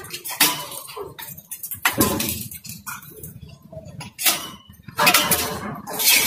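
A small wire hamster cage being handled: its bars and door rattle and clink in a run of irregular knocks, loudest near the end.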